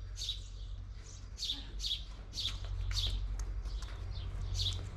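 A small bird chirping over and over, a short high chirp roughly every half second, with a low steady hum underneath that grows louder about halfway through.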